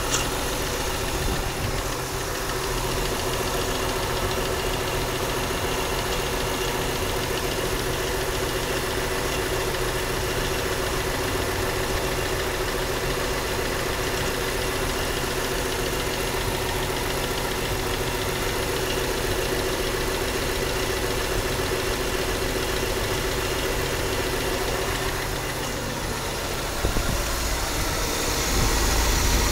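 230 cubic-inch inline-six engine idling steadily, an engine with an unidentified grinding noise. Near the end it gets louder with a deeper rumble.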